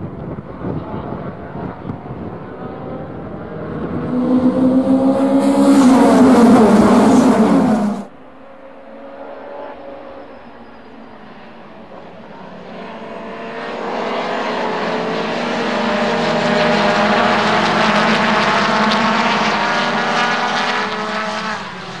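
A pack of vintage under-2.5-litre sedan race cars accelerating hard past in a group, many engines revving together with rising pitch. The sound cuts off suddenly about a third of the way in, then a second wave of engines builds, peaks and fades near the end.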